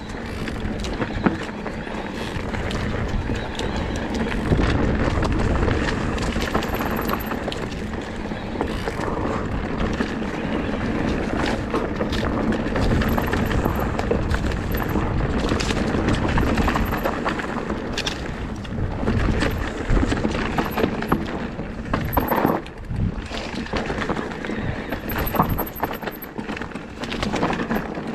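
Lapierre GLP2 electric enduro mountain bike riding down rocky singletrack: tyres running over rocks and dirt, the bike clattering over bumps, with constant rumble of wind on the microphone.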